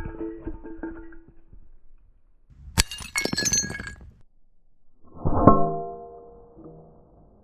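Plucked-string music fades out. Then glass shatters, hit by a BB: one sharp crash and a second of tinkling pieces. A couple of seconds later a single ringing knock dies away.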